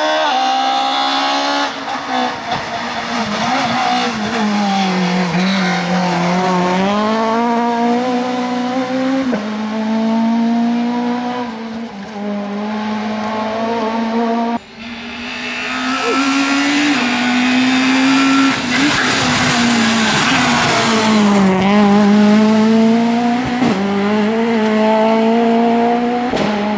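Rally-prepared Peugeot 106 S16 engines running hard on two separate passes. Each time the engine note drops as the car slows for a bend and then climbs again as it accelerates away. There is an abrupt cut between the two cars about halfway through.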